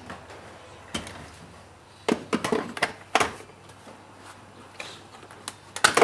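Plastic interior trim of a 2008 Mitsubishi Lancer being pried loose and handled: scattered clicks and knocks a second or so apart, the sharpest one near the end.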